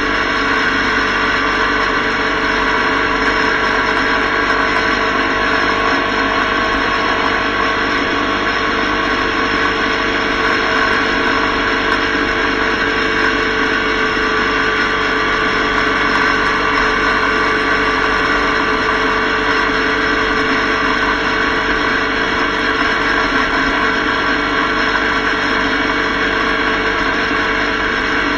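Motorcycle cruising at a steady highway speed: constant engine drone mixed with wind and road noise, with no change in pitch or level.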